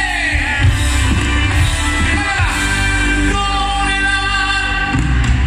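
Grupero band playing live through a PA system: a sung lead vocal over bass, drums and Latin percussion, with saxophone, keyboard and electric guitar.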